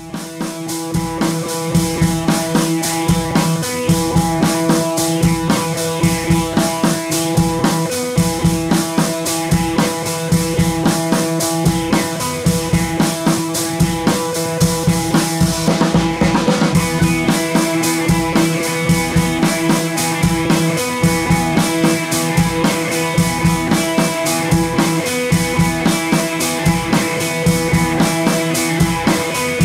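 Background music: a steady drum-kit beat with bass drum under sustained notes.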